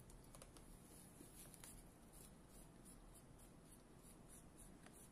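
Near silence: room tone with a few faint light clicks and scratchy handling noises.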